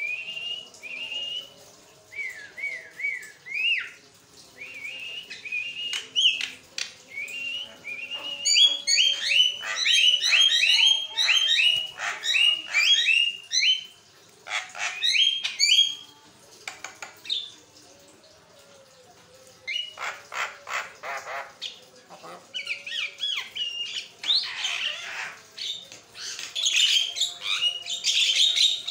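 Javan myna singing a long, varied chatter: runs of rising whistled notes, rapid clusters of notes, a series of clicks, and harsh squawky calls. There is a short pause about two-thirds of the way through.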